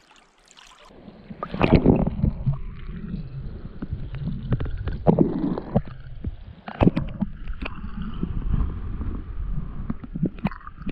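River water sloshing and splashing around a caught brown trout held in the current to recover before release, with several sharper splashes a few seconds apart over a steady low rumble.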